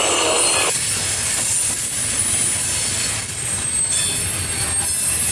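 Loaded coal hopper cars of a freight train rolling past at speed, a steady rumble of steel wheels on rail with faint high wheel squeal.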